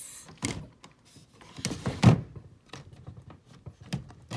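A cabinet drawer is pushed shut and a cabinet door is handled: a sliding rub builds to a heavy thud about two seconds in, with lighter knocks and clicks around it.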